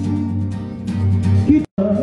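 Music with a steady beat, broken by a split-second dropout near the end.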